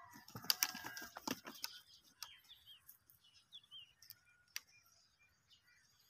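Rustling and a quick run of sharp clicks close at the microphone for about a second and a half, a goat's muzzle nosing against the phone, then a few scattered faint clicks. Small birds chirp faintly in the background.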